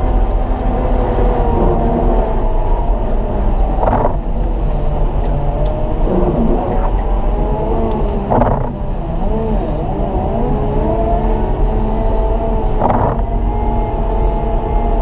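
Caterpillar 926M wheel loader's diesel engine running steadily under load while pushing heavy wet snow with a pusher blade, its pitch drifting up and down as the revs change. A short burst of noise cuts through about every four to five seconds.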